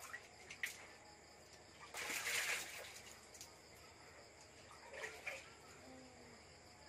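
Water scooped by hand from a large clay water jar and splashing into a metal bowl, one short splash about two seconds in, with a few light knocks of the bowl around it.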